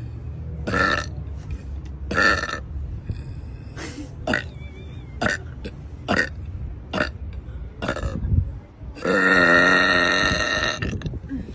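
A woman burping over and over: a string of short burps, then one long, loud burp lasting about two seconds near the end.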